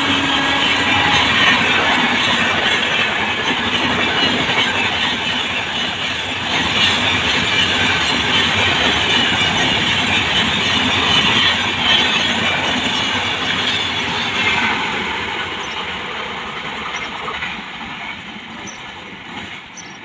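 Express train of LHB passenger coaches passing at speed: a steady rush and rumble of wheels on rails with rail-joint clatter. It grows fainter over the last few seconds.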